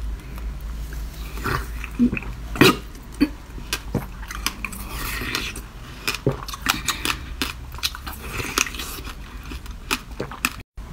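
Biting into and crunching a column of frozen flavoured ice: a string of sharp, irregular crunches and snaps.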